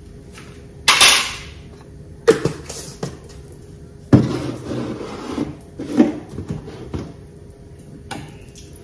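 Kitchen handling sounds: about six sharp knocks and clinks of a spoon and jars against dishes on the counter. Two of them trail off into about a second of rattling noise.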